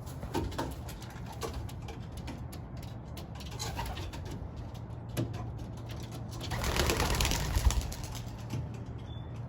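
Racing pigeons cooing in their loft, with scattered light clicks and a louder rush of noise lasting about a second and a half, some seven seconds in.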